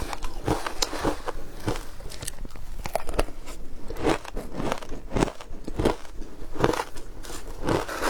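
Frozen matcha ice being bitten and chewed: a steady run of sharp crunches, about two a second, with crackling between them.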